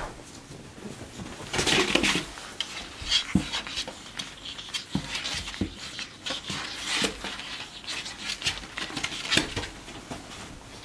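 Two capuchin monkeys play-wrestling on a bed: scattered rustles of the bedding and soft thumps as they tumble and jump, with a few louder scuffles.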